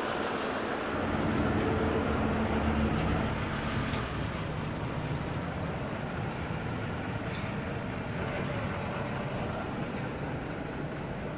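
Steady urban background noise, with a low rumble that swells between about one and four seconds in.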